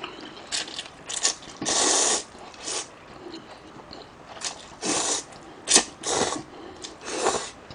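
Close-miked slurping and chewing of spicy instant ramen noodles: a string of short slurps, the longest about two seconds in.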